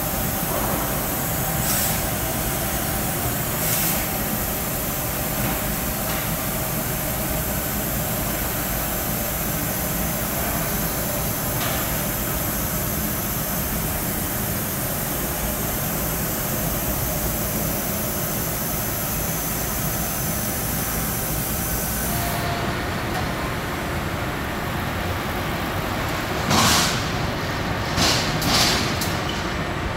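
Bystronic BySpeed Pro 3015 CNC laser cutter cutting sheet metal: a steady hiss from the cutting head with machine hum underneath. About 22 seconds in the high hiss stops, and near the end there are three short, louder hisses.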